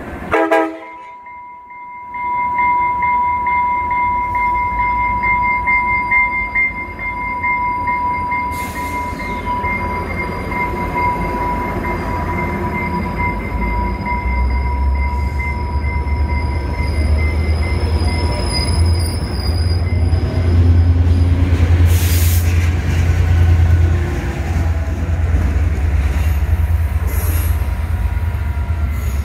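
Trinity Railway Express commuter trains: a steady high whine over the first half, then the deep rumble of a diesel locomotive hauling bilevel coaches, building from about halfway in as it approaches, with faint high wheel squeal.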